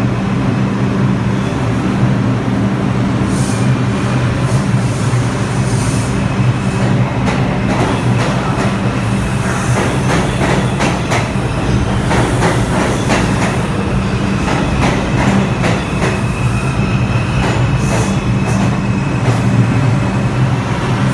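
New York City Subway 2 train rolling slowly into a station: a steady low hum under the rumble of the cars, with wheel clacks over the rail joints coming thick from about seven seconds in, and a faint high squeal.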